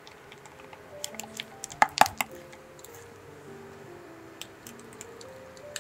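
Soft background music over kitchen handling sounds: a spatula squishing through strawberry cream-cheese filling in a glass bowl, with scattered clicks and two sharp knocks about two seconds in.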